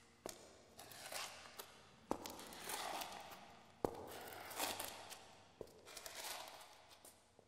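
Floor being cleaned: a run of swishing strokes across the floor, about four in all, each lasting around a second, with a sharp knock as some of them begin.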